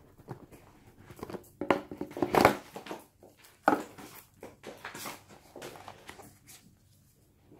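A smartphone's cardboard retail box being opened and handled: the lid is slid off and set down, with a string of scrapes, taps and rustles. The loudest scraping comes about two seconds in, and a sharp knock follows just under four seconds in.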